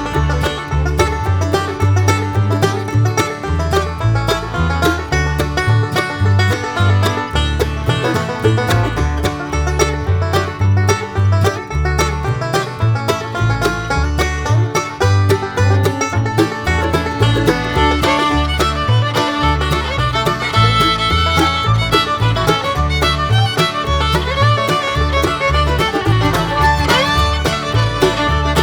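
Upbeat bluegrass-style background music, with banjo and fiddle over a steady bass beat.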